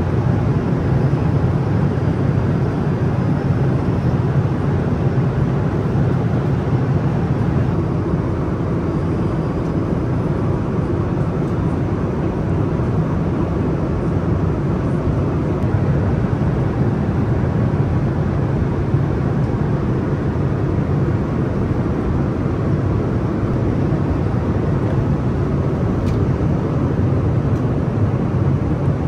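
Steady cabin noise inside an Airbus A330-900neo in flight: an even, low rush of airflow and engine drone that does not change.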